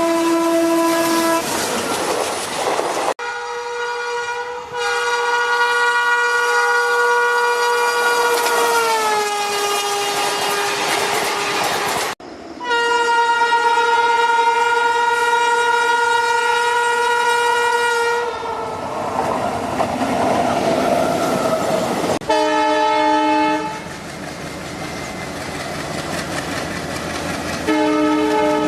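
Indian Railways locomotive horns in a string of separate passing trains: long multi-tone horn blasts, one dropping in pitch as the locomotive goes by, then shorter blasts, with wheels clattering over rail joints in between.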